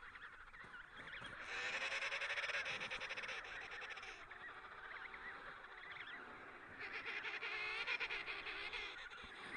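Emperor penguins calling: wavering, pulsing calls in two louder spells, about a second and a half in and again near the end, over a continuous layer of fainter calls from other penguins.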